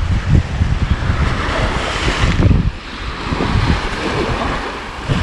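Sea waves washing against a rocky shore, one surging in about two seconds in, with wind buffeting the microphone.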